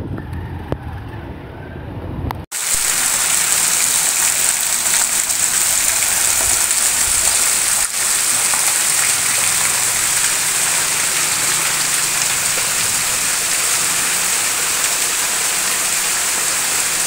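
Heavy rain pouring steadily on a yard, roof and veranda: a loud, even, dense hiss. For the first two seconds or so, before it cuts in, there is a low rumble of a motorcycle passing on a street, with wind on the microphone.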